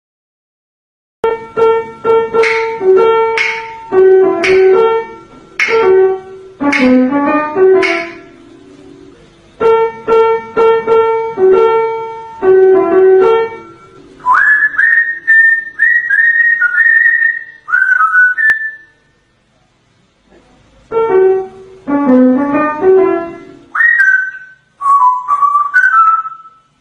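After about a second of silence, a piano melody plays in short phrases, alternating with an African grey parrot whistling: a run of whistled notes that slide up and hold at one high pitch, then more piano, and a short stepping whistle near the end.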